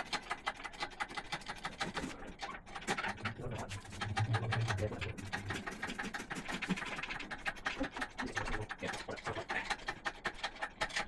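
Workshop sounds of an engine being hoisted out of an engine bay on a chain engine crane, fast-forwarded: a dense run of quick clicks, knocks and scrapes.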